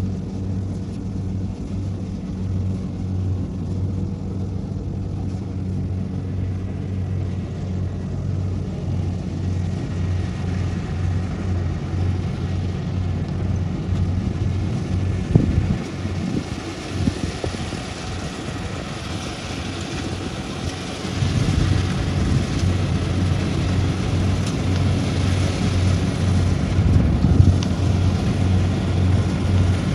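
Kubota combine harvester running steadily while it cuts and threshes rice: a low diesel engine hum with a rushing mechanical noise over it. There are a few short knocks around the middle, and the sound grows louder about two-thirds of the way through.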